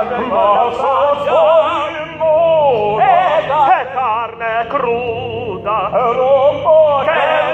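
Operatic singing with a wide vibrato, more than one voice at once, over a faint low sustained accompaniment.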